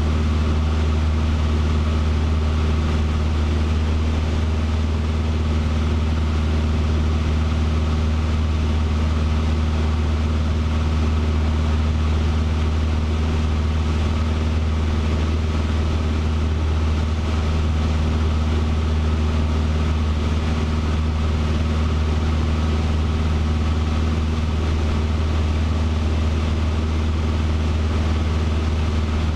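Cessna 150's four-cylinder Continental O-200 engine and propeller running steadily at cruise power, heard inside the cabin as an even, unchanging drone.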